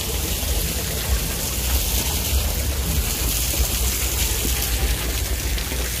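Wind buffeting a phone microphone: a steady, uneven low rumble with a hiss over it.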